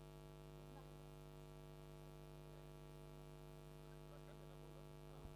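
Near silence with only a faint, steady electrical hum carrying a ladder of even overtones, typical of mains hum in the audio line.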